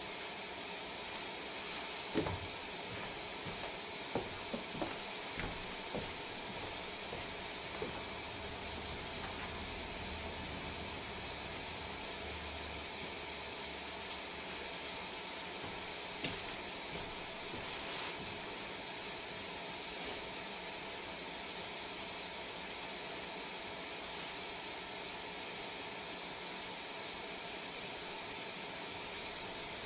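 Quiet room tone with a steady hiss, broken by a few faint clicks and knocks in the first several seconds and again about two-thirds of the way in. A low hum comes in for a few seconds in the middle.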